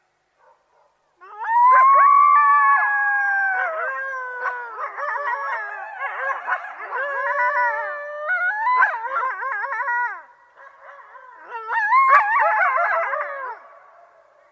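A group of coyotes howling together: starting about a second in, long howls overlap at several pitches, then waver and break into quavering yips and warbles near the end before fading out.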